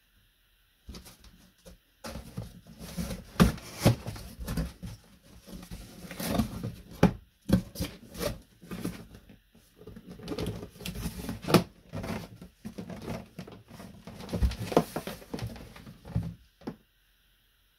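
Cardboard box being handled by hand: its flaps folded shut and the box shifted about, giving a run of cardboard rustling, scraping and knocks that starts about a second in and stops shortly before the end.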